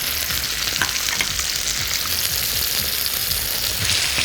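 Chopped tomatoes and minced garlic sizzling steadily in hot oil in a pan over high heat, with a few light clicks.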